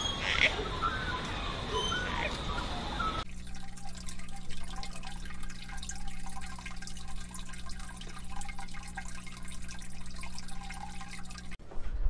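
Aquarium sound: water trickling and dripping from the tank's filter over a steady low electric hum from its pump. It starts about three seconds in, after a short stretch of open-air background with a couple of brief chirps.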